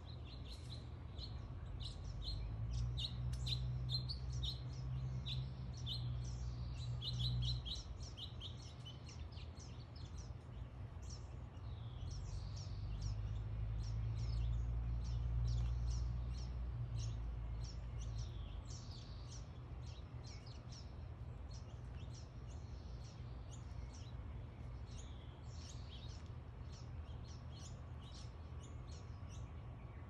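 Small backyard songbirds chirping and calling throughout, with a fast run of rapid chirps in the first several seconds. A low rumble swells and fades twice, once in the first few seconds and again around the middle.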